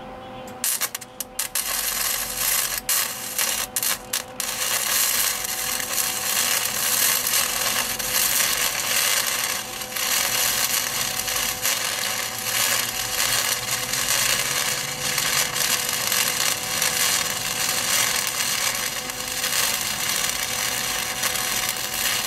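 Wire-feed (MIG) welder arc crackling as a bead is run inside a nut to weld it onto a broken bolt stub. It starts in a few short stuttering bursts, then runs steadily and cuts off suddenly at the end.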